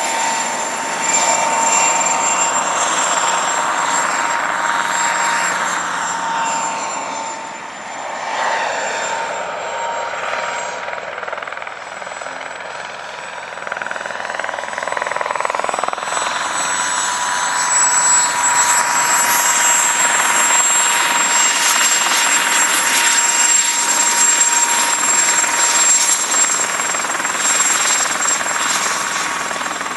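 Mosquito XET ultralight helicopter running, its turbine giving a steady high whine over the rush of the rotor. The sound fades somewhat about a quarter of the way in and swells back up after the middle, as if the helicopter moves away and returns.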